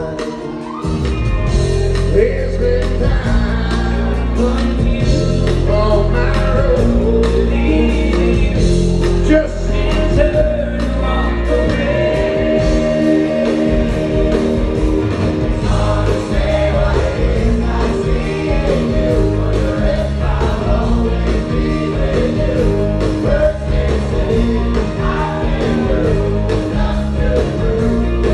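Live rock band playing a song with singing over electric guitars, bass and drums. The bass and drums come in about half a second in, and the music then runs on steadily.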